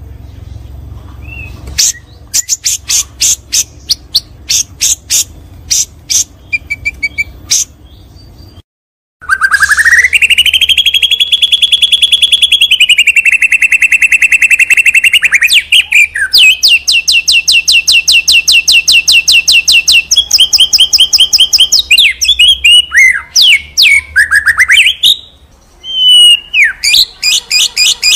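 Murai batu (shama) of the Borneo type singing loudly. It opens with quick, sharp chattering notes, then after a short break gives long, fast trills of rapidly repeated high notes, some rising and some sliding, with a run of varied whistled glides near the end.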